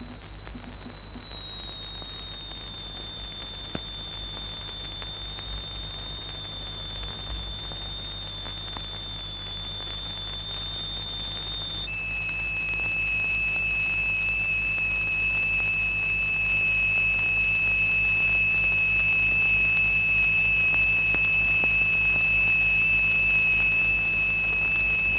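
A steady, high-pitched pure electronic tone from the oscillator exciting the sand-covered vibrating plate. It sags slightly in pitch, then about twelve seconds in jumps abruptly to a lower pitch and gets louder. A low hum runs underneath.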